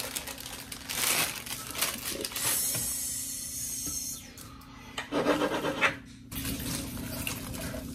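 Mini pine cones rustling and clattering as they are emptied from a plastic bag into a glass vase and pushed around by hand, in uneven bursts with a short lull about six seconds in.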